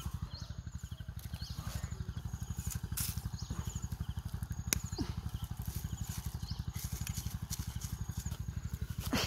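A cleaver-like knife digs into dry soil among carrot plants, giving a few sharp scrapes and knocks, the loudest about 3 and 4.7 seconds in. Under it an engine throbs low, fast and steady in the background, and a short high chirp repeats about once a second.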